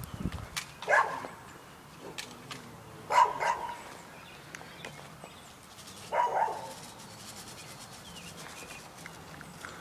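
A dog barking: three single barks, a couple of seconds apart.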